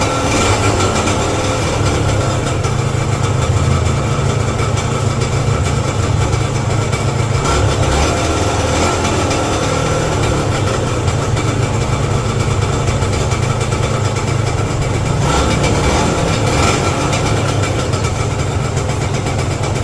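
Yamaha TZM's two-stroke single-cylinder engine running steadily at a fast idle, held at around 2,000 rpm while it warms up after a rebuild.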